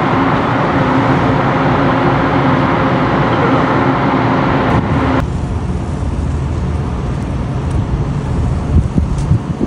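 Engine of an anchor-handling work boat running steadily with a humming tone. About five seconds in it cuts abruptly to a lower rumble with a few knocks near the end.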